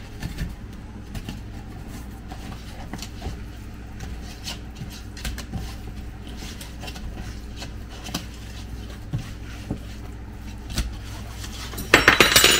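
Hands mixing raw carp pieces into a dry spice marinade in a bowl: soft, scattered rubbing and light knocks over a steady low hum. Near the end a kitchen tap is turned on with a loud rush of water.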